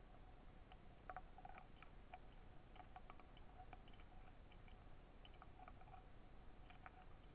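Near silence underwater, with a low steady hiss and faint, irregular small clicks and ticks scattered throughout.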